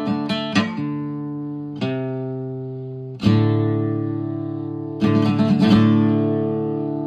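Acoustic guitar music: chords strummed a few times and left to ring out between strums.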